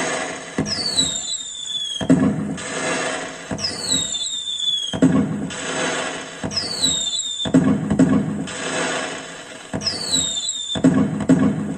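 Firecracker sound effects played through a pixel-LED cracker tree controller's speaker, repeating about every two and a half seconds: a high falling whistle, then a burst of bangs and crackle.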